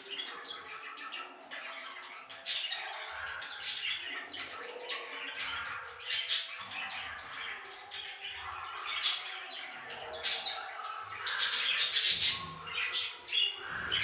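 Budgerigar chatter: a continuous warbling with many sharp chirps and squawks mixed in, busiest near the end.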